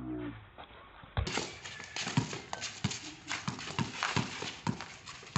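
Basketball being dribbled on a concrete court: a regular run of bounces, about two to three a second, starting about a second in.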